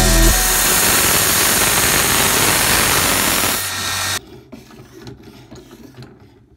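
Belt grinder running with a loud, even grinding rush that cuts off after about four seconds. Then come faint, repeated strokes of a sharpening stone drawn along a knife edge in a guided sharpening system.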